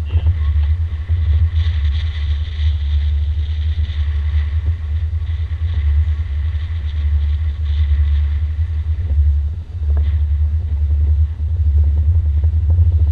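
Motorboat under way: a steady low rumble from its engine, with an even hiss of water and wind over it.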